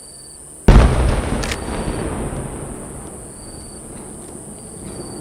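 A single aerial firework shell bursting with a loud boom less than a second in, its rumbling echo fading over the next few seconds. Crickets chirr steadily underneath.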